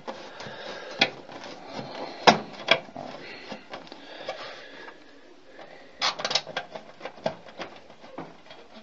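PC case side panel and thumb screws being handled and fitted: irregular sharp clicks and knocks, a cluster of them about six seconds in, with light scraping between.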